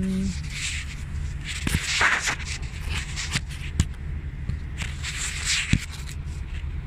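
Scattered footsteps and scuffs of a person moving beside a semi-trailer's landing gear, a few sharper knocks among them, over a steady low rumble.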